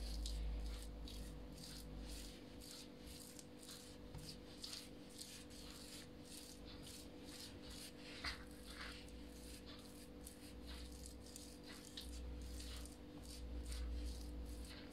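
Hands rubbing and smearing lard across a sheet of rolled-out dough, a run of faint soft strokes, over a steady low hum.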